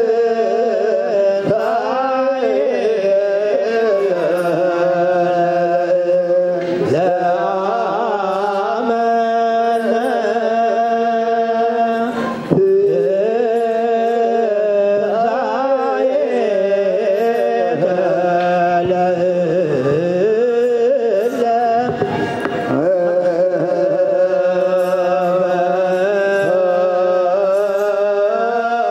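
Ethiopian Orthodox church chant: voices singing long, held notes that bend in ornamented melodic turns.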